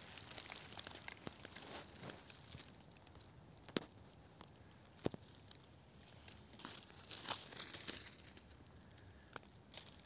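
Faint rustling and crackling of dry fallen leaves and twigs on the forest floor as a person shifts close over them, with a few scattered sharp snaps.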